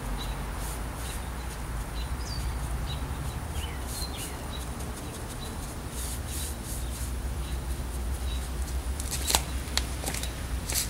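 Scratchy strokes and dabs of a thick-bristled round paintbrush on a wooden chair, working chalk paint into its corners and smoothing it out. A few faint bird chirps come in the first few seconds, a steady low rumble runs underneath, and a few louder knocks come near the end.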